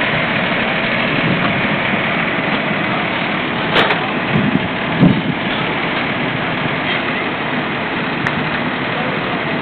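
Fire engine's engine running steadily at close range, with a couple of short knocks about four and five seconds in.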